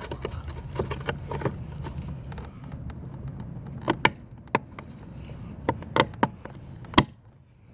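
Door mirror glass being pressed back onto its power mirror actuator: a run of sharp plastic clicks and knocks, the loudest about seven seconds in, over a low hum during the first few seconds.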